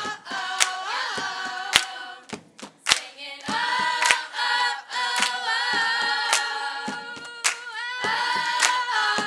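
A cappella choir singing held, layered notes, with sharp claps striking every second or so.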